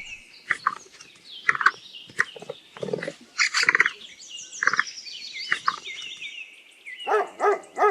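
Capybara giving a series of short squeaking calls, with birds chirping in the background.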